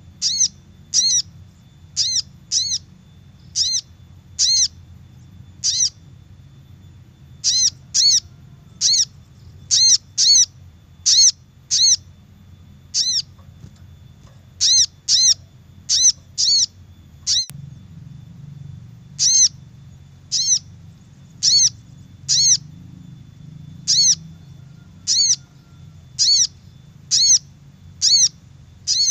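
Sogok ontong (sogon) bird call played as a lure: short, high notes that rise and fall, repeated about once a second, often in pairs, with a few brief pauses, over a faint low hum.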